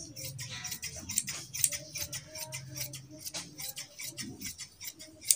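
Large tailor's scissors cutting cloth: a run of irregular snips and blade clicks as the shears close along the marked line.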